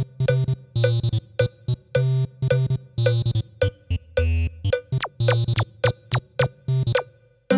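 Electronic MIDI music: short, staccato synthesizer and drum-machine notes in a quick rhythm, some with falling pitch slides, pausing briefly near the end.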